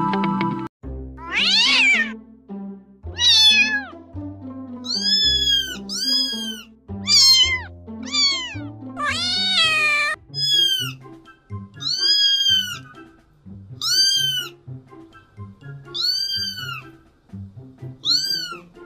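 A domestic cat meowing again and again, about a dozen short arched meows, some in quick pairs, over soft background music.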